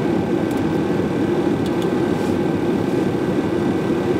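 Steady hum of ventilation and equipment on a Boeing 757-200 flight deck, even in level, with faint steady high-pitched tones running through it.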